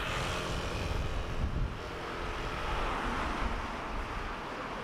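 A vehicle passing close by: a rushing sound with a faint steady hum that sets in suddenly and fades away toward the end, over low wind rumble on the microphone.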